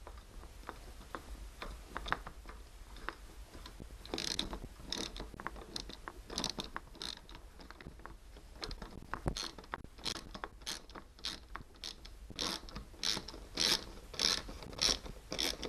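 Socket ratchet wrench clicking in short strokes as screws are driven down tight. The strokes turn into a steady, louder rhythm of about one and a half a second near the end.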